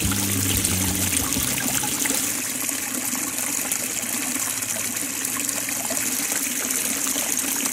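Small stream trickling and splashing over rock in a little waterfall, a steady rushing of water. Music fades out in the first second.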